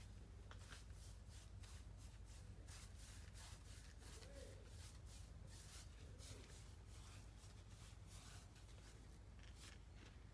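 Near silence, with faint scratchy rubbing sounds coming irregularly, a few a second.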